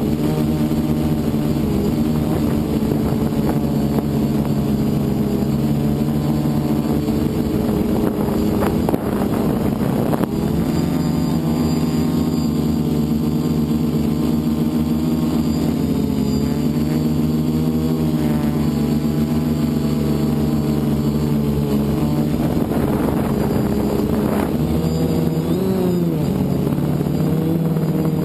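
FPV multirotor's electric motors and propellers running, a steady multi-tone buzz whose pitch rises and falls as the throttle changes.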